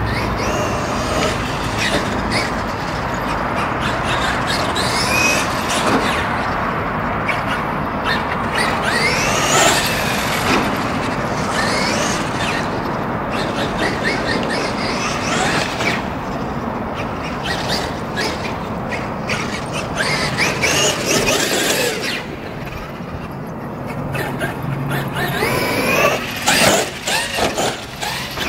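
Brushless electric RC off-road car whining as it is driven round a dirt track, the motor pitch rising and falling again and again with throttle, with a choppier, louder stretch near the end.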